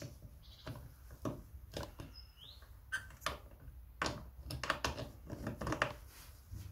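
Small clicks and light knocks of a carburettor being handled and pushed into place on a Stihl 028 AV chainsaw, with a brief high squeak about two seconds in.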